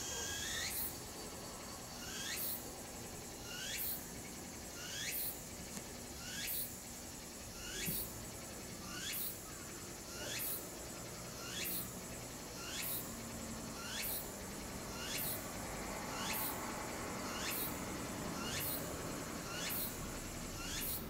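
Cicada singing: a repeated call, each sweeping sharply down in pitch, a little more than once a second, over a steady high hiss.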